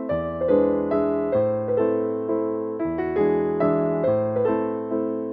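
Background piano music, a gentle melody of notes struck about twice a second, each fading away.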